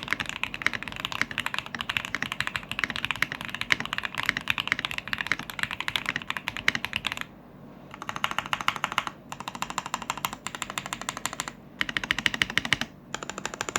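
Typing on a Physalis mechanical keyboard with SP-Star Polaris Grey switches mounted on a half plate, a fast clatter of keystrokes. The typing runs continuously for about seven seconds, then comes in short bursts with brief pauses between them.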